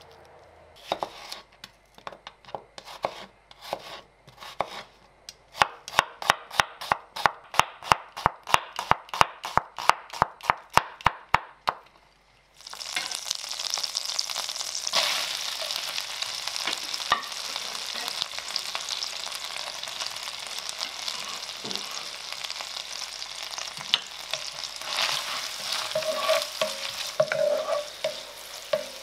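A knife cuts red onions on a wooden board, first in a few uneven knocks, then in a fast, even run of chopping strokes, about five a second. After an abrupt change, butter and diced red onion sizzle steadily in a cast-iron pot, with occasional scrapes of a wooden spatula.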